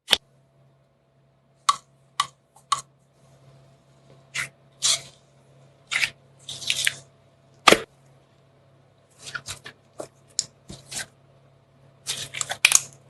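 Slime being squeezed and poked by hand, giving a series of short wet pops and crackles at irregular intervals, with a faint steady hum underneath.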